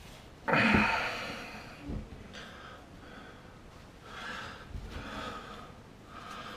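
A man's breathing close to the microphone: a sudden hard exhale about half a second in, then several softer breaths.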